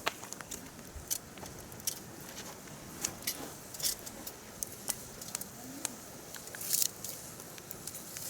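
Firewood burning in a campfire, crackling with irregular sharp pops and snaps, and a brief flurry of crackles about seven seconds in.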